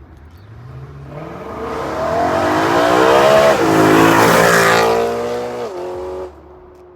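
BMW E93 M3's 4.0-litre V8, breathing through a catless X-pipe into the stock muffler, accelerating hard: the revs climb, drop at an upshift about three and a half seconds in, climb again, then fall away as the throttle closes near the end.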